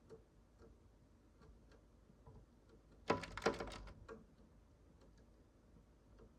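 Faint scattered ticks and taps at a bird feeder, with a short, louder rattling clatter of quick clicks about three seconds in that lasts under a second, as birds land and peck.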